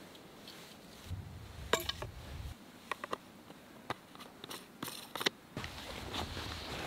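Fishing gear being handled and packed: a scattered series of sharp clicks and knocks as a fly-rod tube is capped and a backpack is picked up, over low rustling handling noise.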